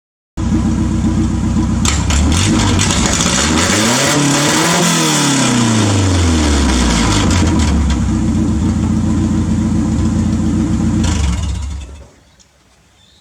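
Toyota 4Y four-cylinder petrol engine in a 1986 Hilux, revved up once and back down, then running steadily before dying away near the end.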